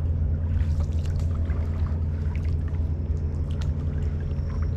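Water trickling and dripping with small knocks and splashes as a fishing longline is handled in a wooden canoe, over a steady low rumble.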